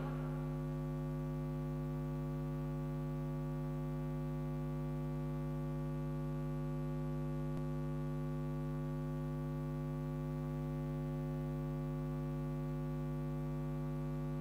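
Steady electrical mains hum, a low buzz with many overtones and no music, with one faint tick about halfway through.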